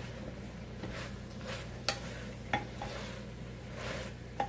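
Vegetables and greens sizzling steadily in oil in a crock on the stove, with a spoon stirring them and knocking sharply against the pot about three times.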